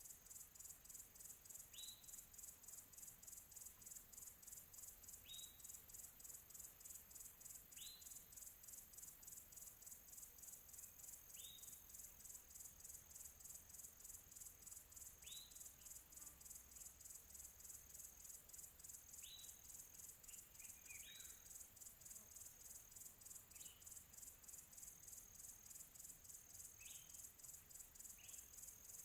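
Crickets chirping in a steady, fast pulse of high chirps, faint, with a bird giving a short rising call about every three seconds.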